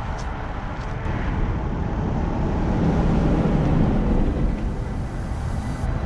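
Wind buffeting an outdoor microphone: a steady low rumble that swells and eases.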